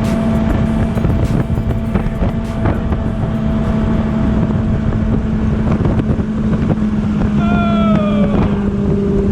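Motorboat engine running steadily under way, with wind buffeting the microphone; a short falling tone near the end.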